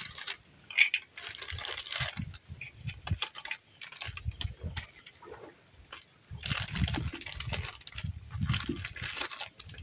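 Crinkling and rustling of a plastic Parle-G biscuit wrapper being torn open and handled, with light clicks and clatters as the biscuits slide out into a clay bowl. The handling is busiest in the second half.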